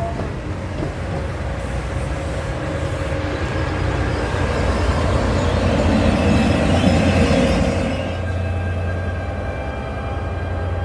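New Jersey Transit multilevel passenger train rolling past on the rails with a steady rumble. It builds to its loudest about six to seven seconds in, then drops off around eight seconds in to a lower steady hum.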